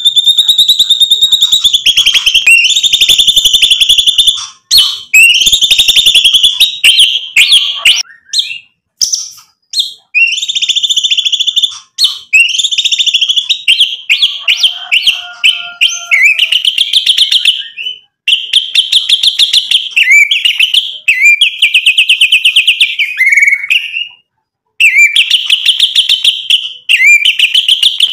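White-rumped shama singing loudly: long runs of rapid, stuttering repeated notes, broken by a few short pauses.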